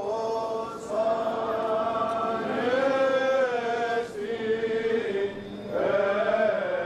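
Greek Orthodox Byzantine chanting of the Easter service: voices singing long held notes that slide slowly up and down, with a short breath about five seconds in before the next phrase.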